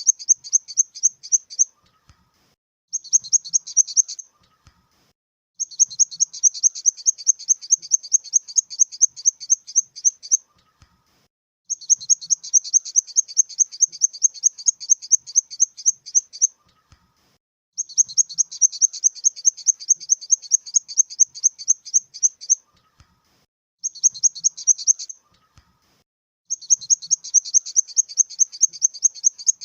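Grasshopper stridulating: high-pitched, rasping runs of rapid pulses, several strokes a second. Each run lasts one to five seconds, with short silent gaps between runs.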